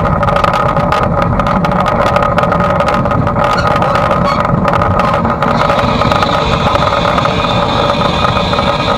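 Footplate noise in the cab of A1 Pacific steam locomotive 60163 Tornado: a loud, steady steam hiss with rapid rattling and knocking. The rattling dies away a little over halfway through as a higher hiss comes in.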